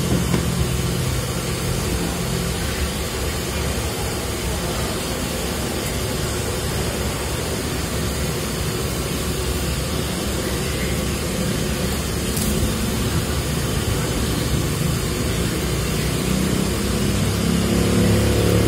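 Steady background rumble and hiss, with a low hum that swells near the start and again near the end.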